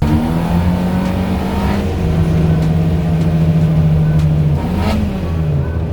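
Car engine running on the move, its pitch dropping about two seconds in as if through a gear change, then rising briefly and falling away again near the end.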